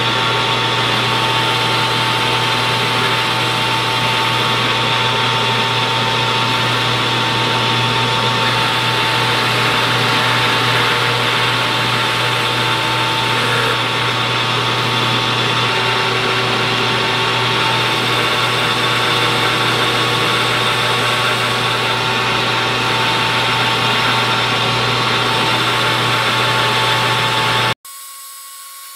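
Metal lathe running under power, its tool taking a steady cut along a turned shaft: an even machine hum with a thin high whine from the drive. It cuts off abruptly near the end.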